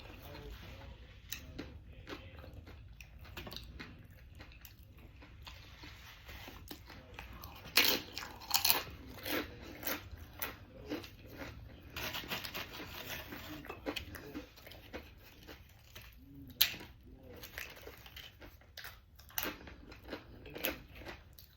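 Close-miked eating: a person crunching and chewing food dipped in brisket queso, with irregular crisp crunches. The loudest bites come about 8 seconds in and again near 16 seconds.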